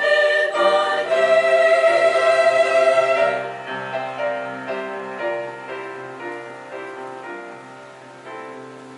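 Background choral music with sustained sung notes, dropping after about three and a half seconds to a quieter passage of shorter notes that gradually fades.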